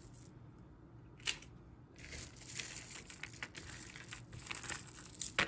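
Plastic bag crinkling and rustling while jewelry is handled inside it. A single light click comes about a second in, and a dense crackle of crinkles and small clicks starts about two seconds in.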